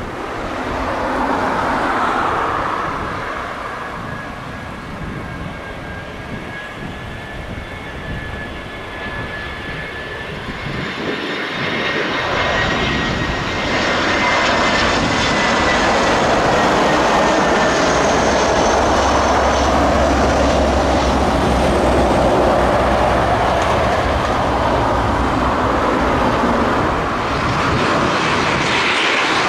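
Jet airliner's engines close by, a high whine over a broad rumble that builds from about ten seconds in and stays loud for much of the rest.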